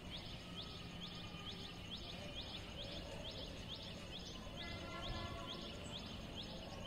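A small bird repeating a high, quickly rising chirp about twice a second, faint, over low wind rumble on the microphone.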